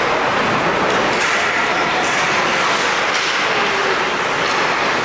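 Steady din of an ice hockey game in a rink: a constant noise wash with many faint, overlapping voices.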